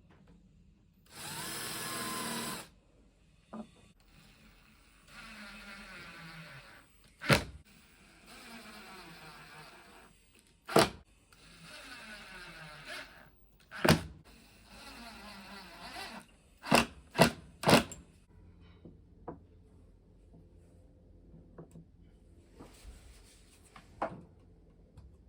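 Power drill running in short bursts of about a second and a half, its pitch dropping during each run, with sharp clacks between the bursts and three quick ones near the end. A louder, harsher burst comes about a second in.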